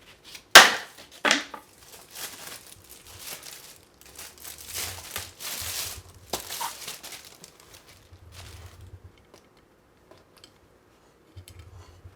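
Packaging being handled: crinkling and tearing rustles, with two sharp knocks in the first second or so, the first the loudest sound. The rustling dies away in the second half.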